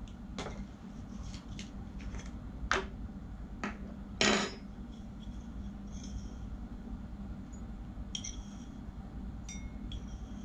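Kitchenware handled on a wooden table: a string of knocks and clatters as a ceramic mug, a spoon and a jar lid are set down and a glass coffee jar is opened, the loudest a short clatter about four seconds in. Near the end come a few short clinks of glass that ring briefly.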